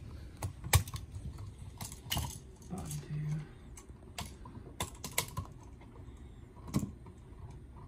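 Irregular sharp clicks and taps of a small flathead screwdriver and stiff copper wires against a plastic duplex outlet, as the wires are worked free of its push-in quick-connect holes.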